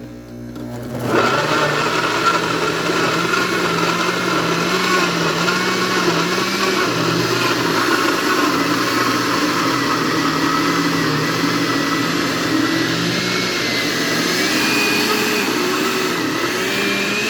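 Countertop blender switched on about a second in and then running steadily, blending diced carrots with water for a carrot cake batter.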